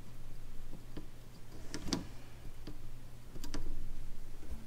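A few light, irregularly spaced clicks and taps of a white-out correction pen dabbing marks through the holes of a plastic stud template onto a snowmobile track, over a steady low hum.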